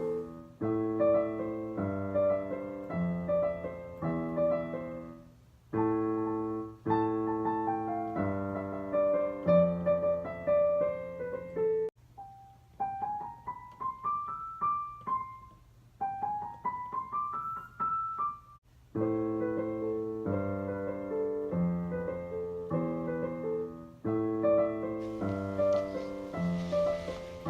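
Solo piano music: chords struck in a steady repeating pattern, with two quick rising runs of single notes in the middle.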